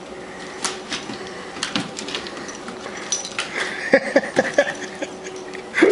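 Small dogs' claws clicking and scrabbling on a hardwood floor as they dash after a laser-pointer dot. The clicks come scattered at first and bunch into a quick flurry about two-thirds of the way in.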